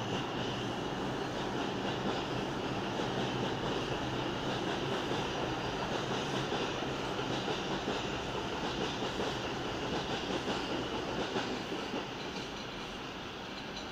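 New York City subway train running along the far track, a steady rush of wheel and rail noise that drops off a little about twelve seconds in as the last cars clear.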